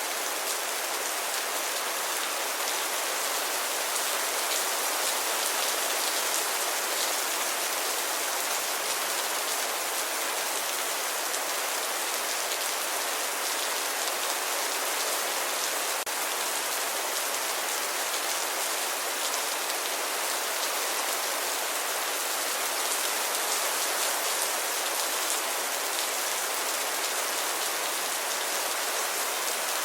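Steady rainfall: an even hiss of rain with fine pattering of drops on a surface, no thunder.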